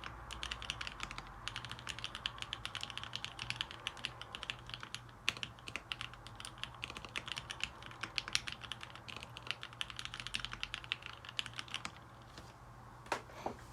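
Fast, continuous typing on a Salamander mechanical keyboard with lubed vintage Cherry MX Black linear switches, a PVC plate and lubed stabilizers: a dense run of keystroke clacks. The typing stops about twelve seconds in, followed by a couple of louder isolated clacks near the end.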